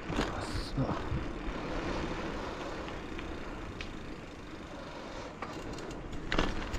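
Rolling noise of a bicycle ride: a steady rush of wind on the microphone and tyres on asphalt, with a few light rattles from the bike and a sharper knock near the end.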